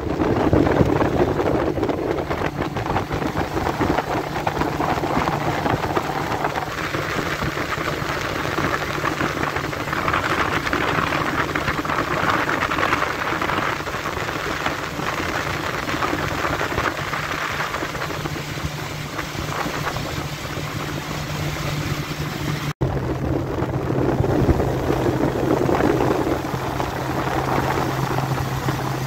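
Motorboat under way at speed: a steady engine drone under the rush of water along the hull and wind buffeting the microphone. After a brief break near the end, the engine drone carries on at a slightly lower pitch.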